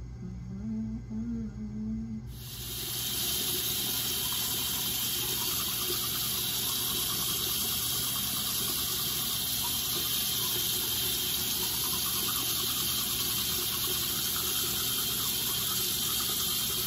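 Bathroom tap running steadily into the sink while teeth are brushed with a manual toothbrush, starting abruptly about two seconds in.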